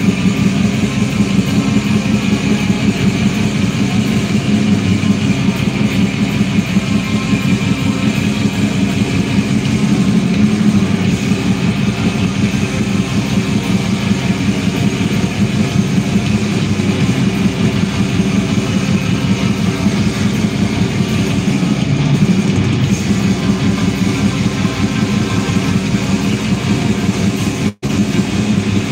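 Black metal band playing live, heard from the audience: a dense, unbroken wall of distorted electric guitars and drums. The sound cuts out for a split second near the end.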